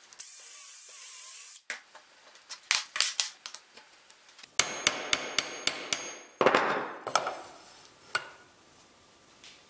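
A cordless drill whirs for under two seconds and stops. After some handling clicks, a steel rod is tapped with a hammer, about six quick strikes that ring metallically, followed by a brief scraping rustle and a click.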